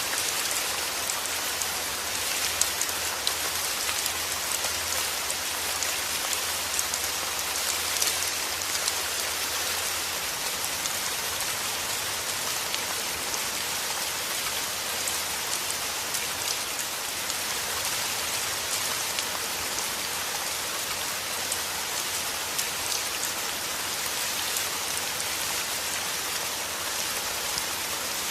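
Heavy rain falling steadily: a dense, even hiss with scattered louder drop hits.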